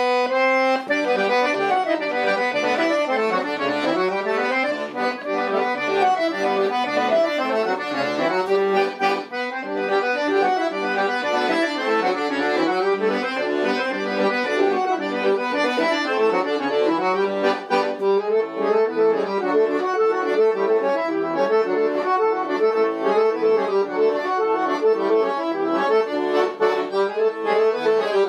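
Pigini chromatic button accordion played solo: a polka. It opens on a held note, then a quick melody runs over a steady bass and chord accompaniment.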